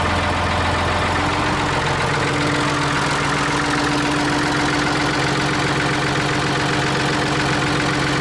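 1978 Ford 555 backhoe's three-cylinder diesel engine running steadily just after a cold start, sounding healthy after sitting for a year. Its note changes a couple of seconds in, the deepest hum giving way to a somewhat higher one.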